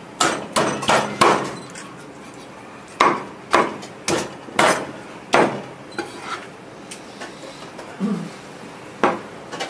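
Cleaver chopping through boiled chicken onto a thick round wooden chopping board: sharp, loud chops in short runs with pauses between.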